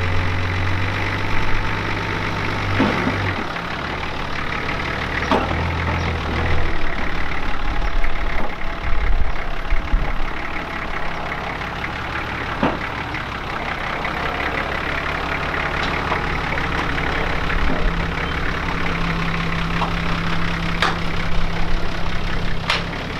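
Flatbed tow truck's engine idling steadily while a four-wheel drive is loaded onto it, the engine note shifting pitch a few times, with scattered clicks and knocks.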